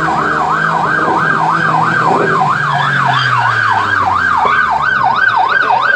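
Police car siren sounding a fast yelp, its pitch wailing up and down about three times a second without a break.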